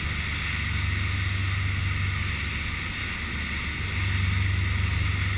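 The engines of a 54-foot custom Carolina sportfishing boat droning steadily under way, over a constant rush of wind and water, and a little louder from about four seconds in.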